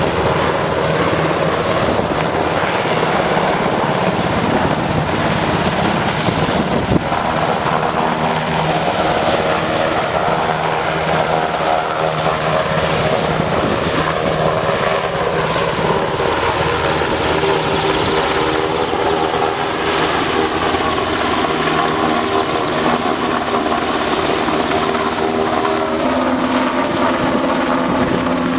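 UH-60 Black Hawk helicopter hovering low: a loud, steady din of rotor noise and turbine whine, with several steady tones that shift in pitch in the second half.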